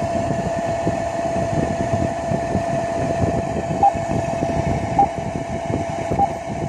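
Steady engine-room machinery noise from a ship engine-room simulator played through computer speakers: a constant hum over a rumbling drone. From about four seconds in, short beeps repeat about once every 1.2 s, like an alarm signal.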